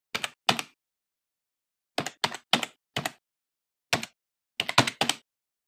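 Computer keyboard keystrokes typing in irregular bunches, about a dozen sharp clicks with dead silence between them, timed to text being typed out letter by letter.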